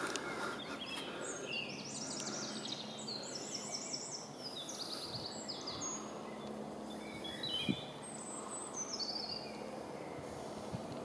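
Small songbirds singing in woodland: a run of quick, high trilled and chirping phrases, over a steady background rustle.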